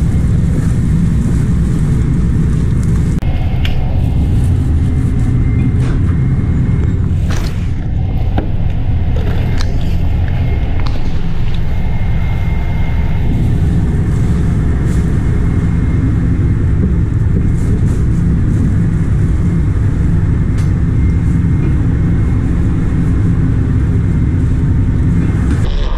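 Steady low rumble of a shrimp trawler's engine and machinery, with scattered light knocks and clicks over it, a few sharper ones about seven seconds in.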